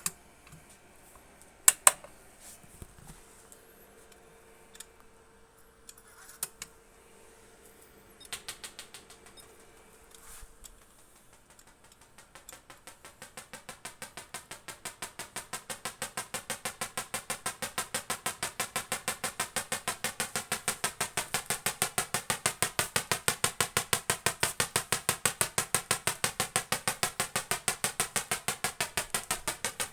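Tesla coil spark discharges: a few scattered snaps at first, then about twelve seconds in a rapid, even train of sharp cracks, several a second, that grows louder.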